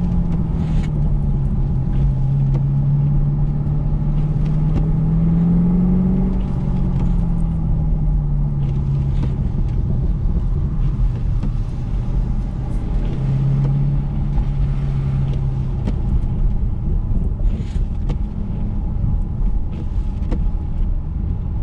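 2013 Camaro SS 1LE's V8 engine heard from inside the cabin, running at low speed with its note falling and rising as the throttle is worked around the course, over tyre noise on wet pavement.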